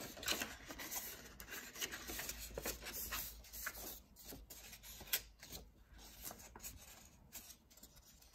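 Sheet of white paper rustling and rubbing as it is folded and handled, in short irregular swishes.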